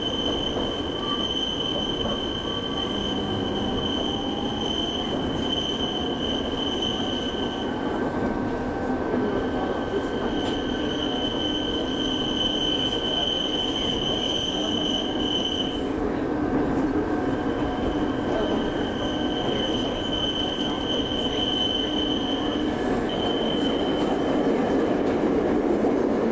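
Electric train running, heard from inside the passenger car: a steady running noise with a high, steady wheel squeal that comes and goes in several long stretches, as the train takes curves.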